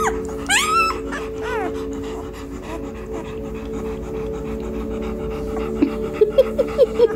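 Three-day-old German Shepherd puppy squealing with a few high, arching squeaks in the first second and a half, then making a run of short rhythmic grunts, about five a second, near the end. A steady low hum lies underneath.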